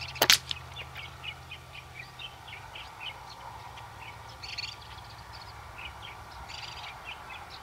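A single shot from an Air Venturi Avenger .22 PCP air rifle: one sharp crack about a quarter-second in. Birds chirp in short repeated bursts behind it.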